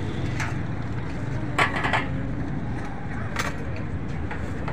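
Steady low rumble of street traffic and surrounding bustle, with a few sharp clinks of crockery, spoons and steel saucers being handled: a quick cluster of clinks about one and a half seconds in is the loudest, with single ones before and after.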